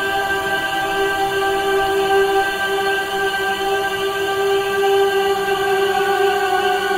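Background music: a choral pad holding one steady chord.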